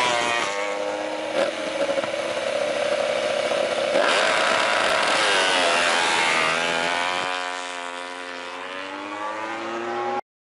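Ducati Desmosedici MotoGP bike's V4 engine revving as it pulls away at low speed, its pitch rising and falling with the throttle. It eases off a little after about seven seconds, then cuts off abruptly just before the end.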